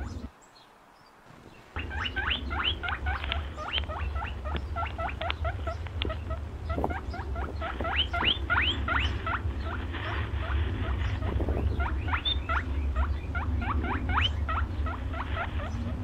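Small birds chirping busily, many short rising chirps several a second, over a steady low rumble. The sound drops out briefly near the start and comes back after about a second and a half.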